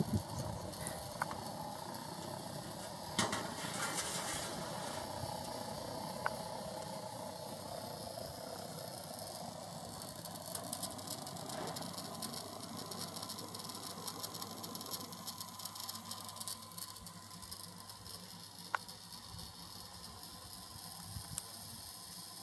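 Steady rushing noise with a few sharp clicks and knocks as the metal gas valves and rotisserie parts of an LPG roast-chicken griller are handled.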